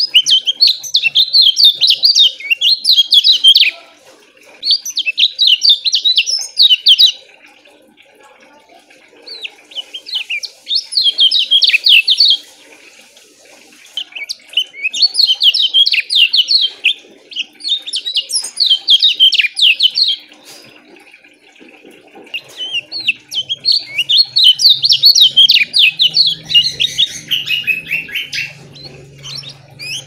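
A caged kecial kuning, a yellow white-eye, singing loud bouts of rapid, closely packed chirping notes. There are about six bouts of three to six seconds each, separated by short pauses.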